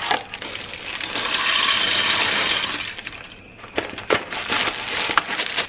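Dry spiral pasta rattling out of a cardboard box into a pan of boiling water, with handling of the box: a swelling hiss about a second in, then scattered clinks and clicks near the end.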